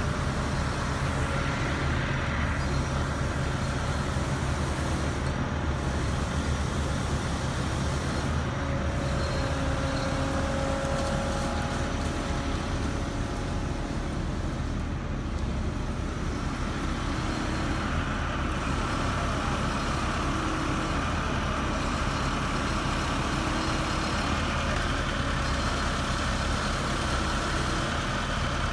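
Heavy diesel engine of a concrete truck running steadily at a constant speed, a continuous low hum.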